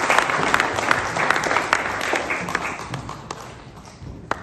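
Audience applauding, at full strength at first and dying away over the last couple of seconds, with a single sharp knock near the end.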